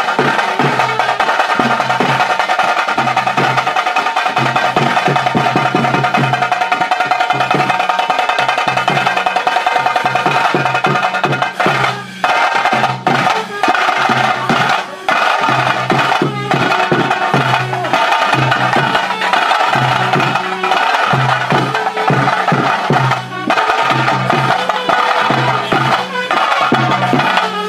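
Loud, fast drumming from a tase drum band, the rhythm that a Tulu Nadu tiger dance is performed to. There are a few brief breaks in the beat about halfway through.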